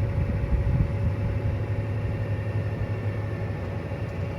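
John Deere 8235R tractor's diesel engine running steadily, a constant low drone heard from inside the cab.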